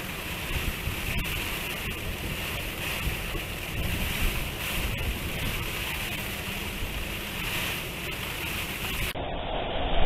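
Typhoon wind and rain: a steady rushing noise with wind gusting on the microphone. Near the end it changes to a louder, deeper wind buffeting.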